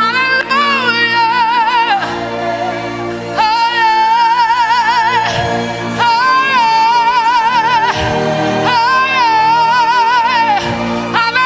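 Gospel worship singing: a woman's voice holds long notes with a wide vibrato in phrases of a few seconds each, over steady sustained accompaniment chords.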